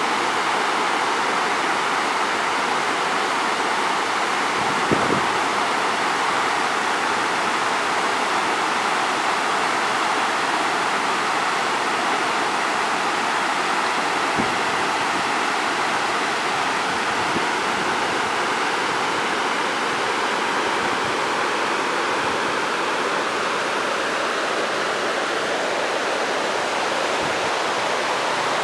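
Mountain stream cascading over boulders: a steady, even rush of white water. One brief thump about five seconds in.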